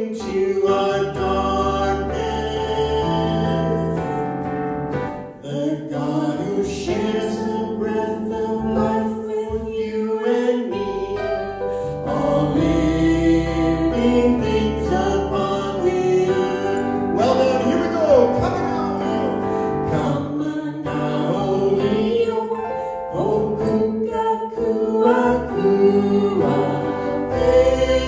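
A group of voices singing a hymn together over sustained low accompanying notes.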